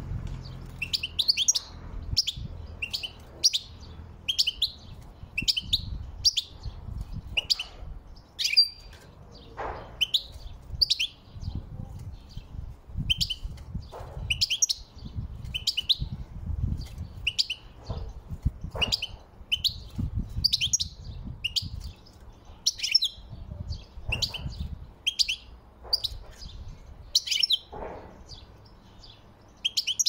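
Caged European goldfinch calling and singing: a steady run of short, high chirps and twitters, about two a second.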